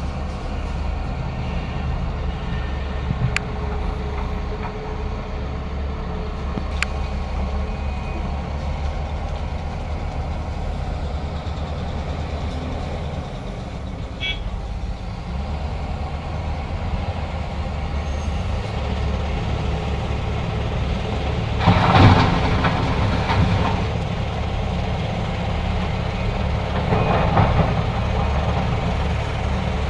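Heavy diesel engines of a Hitachi ZAXIS 470H excavator and a BharatBenz dump truck running steadily with a low rumble, with two louder rushing stretches, one about two-thirds of the way in and a shorter one near the end.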